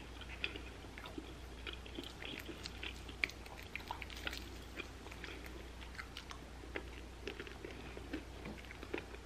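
Close-miked chewing of a sauced fried chicken wing: many small, soft, wet clicks and smacks of the mouth, over a steady low hum.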